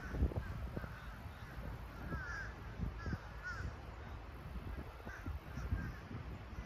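Birds calling outdoors: short, arching calls repeated several times over the few seconds, over a low, gusty rumble.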